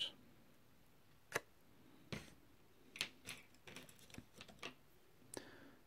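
Faint, scattered clicks and taps of small painting tools and a plastic tray being handled on a tabletop, several of them close together in the middle.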